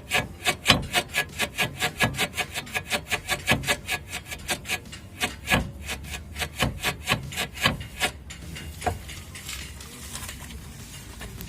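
Torn rear rubber silent block (bushing) of a Chevrolet Aveo front lower control arm creaking and grating rapidly, about five creaks a second, as the suspension is worked back and forth, stopping about eight seconds in. The bushing has begun to separate from its outer metal sleeve at a tear, which is what makes the creak.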